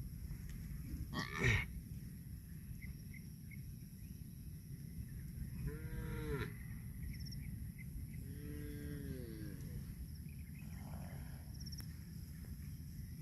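Cattle mooing: two short moos, each about a second long and rising then falling in pitch, about six and eight and a half seconds in, over a steady low rumble. A short loud sound comes about a second and a half in.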